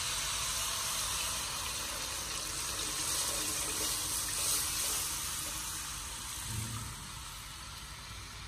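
Lassi thickened with gram flour being poured from a steel pot into a pan of hot frying tomato masala, a steady pouring hiss mixed with sizzling that softens a little near the end. This is the buttermilk-and-besan base going into the masala for kadhi.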